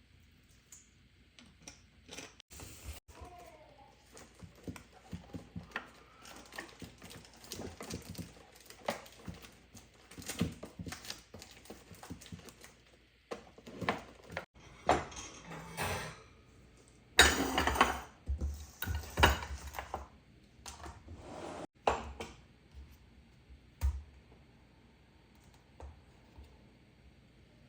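Dishes and utensils clinking and clattering as they are handled, in irregular knocks and clicks, loudest in a burst about two-thirds of the way through.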